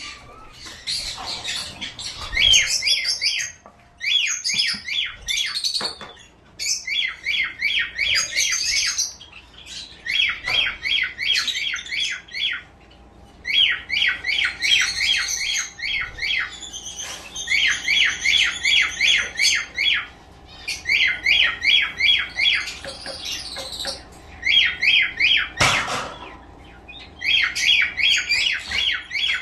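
Small caged pet birds chirping in fast runs of repeated notes, in bouts a second or two long with short gaps between them. A single sharp click near the end.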